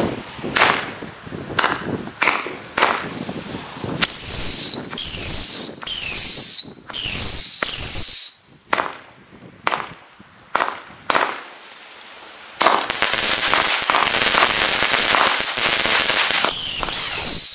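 Small 25-shot comet battery firing: a string of sharp shots, several of them joined by a loud whistle falling in pitch. Near the end comes a few seconds of steady hiss, then more falling whistles.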